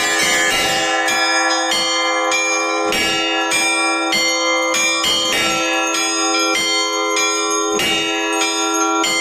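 Orthodox church bells rung together in a continuous peal: rapid strikes on the smaller bells, about two or three a second, ring over the steady hum of a deeper bell.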